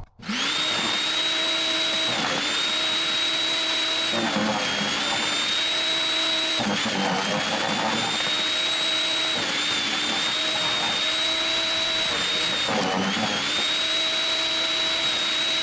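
Portland electric wood chipper running, loud, with a high steady whine and a lower hum. It starts suddenly, and its pitch sags about five times as branches are fed in and ground up, with crunching of wood at each load.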